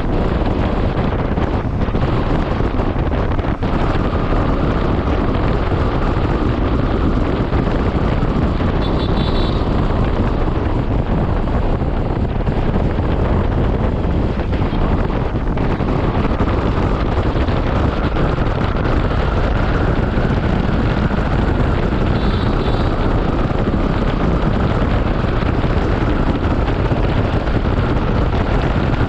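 Steady wind rush on the microphone of a moving Honda ADV 160 scooter, with its single-cylinder engine running underneath at cruising speed. Two short high-pitched sounds cut through, one about nine seconds in and one about twenty-two seconds in.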